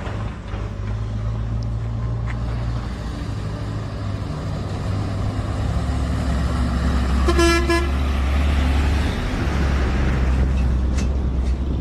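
Motorcycle and truck engines running steadily on a dirt road, growing louder from about six seconds as the oncoming truck nears. A horn toots once, briefly, about seven and a half seconds in.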